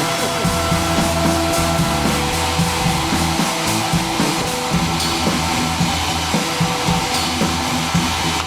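Background rock-style music with bass, guitar and drums; the bass notes change in steps every second or so under a steady beat.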